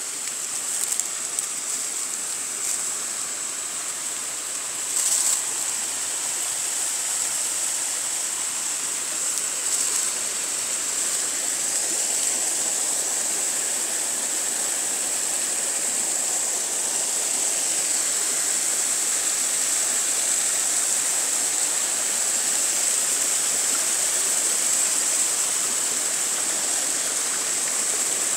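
Small mountain stream cascading over mossy rocks: a steady rush of running water, growing slightly louder as it gets closer. A few brief knocks or rustles in the first ten seconds.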